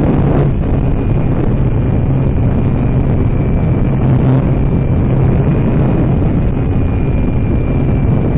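Wind rushing over the microphone of a camera on a small electric RC flying wing in flight, over the steady buzz of its motor and propeller with a faint high whine.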